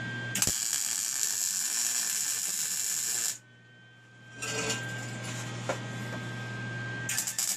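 MIG welder arc crackling and buzzing as a weld bead is laid for about three seconds. It stops, then starts again near the end. A steady electrical hum fills the pause.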